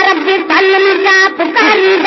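Sindhi naat sung by voice without instruments, in long held notes whose pitch wavers and turns.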